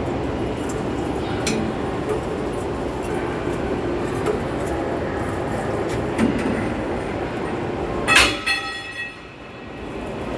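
Steady background rumble with a few light clicks, then about eight seconds in a single sharp metal clank that rings briefly, a hand tool striking metal during work under the vehicle's gearbox.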